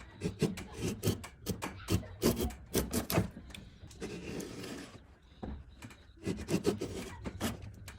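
A woodworking hand tool scraping across wood in quick repeated strokes, about three a second, with one longer drawn-out stroke in the middle.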